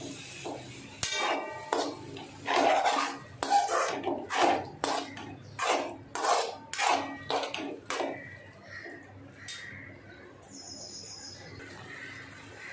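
Steel spoon scraping and clanking against a steel kadhai as grated carrots in milk are stirred for gajar halwa, about two strokes a second. The stirring stops about eight seconds in, leaving a quieter steady background.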